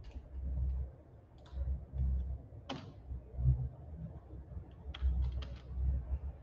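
A few scattered computer keyboard and mouse clicks, the loudest a little under three seconds in and a quick cluster about five seconds in, with dull low thumps in between.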